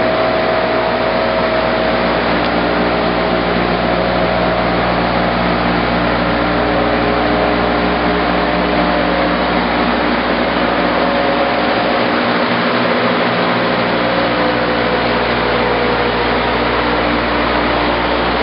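Timesavers Vision orbital twin-pad and rotary brush sanding machine running: a loud, steady industrial drone and hum with no change in pace.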